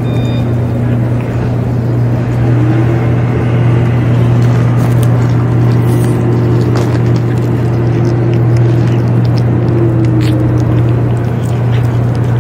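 A cat chewing and tearing at chunks of wet food on a metal plate close to the microphone, giving scattered short clicks, over a steady low hum.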